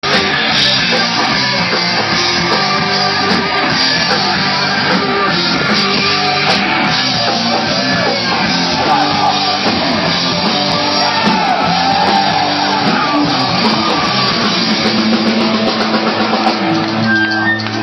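A heavy rock band playing live and loud: distorted electric guitars, drum kit and shouted vocals. Near the end the full-band playing gives way to steadier held notes.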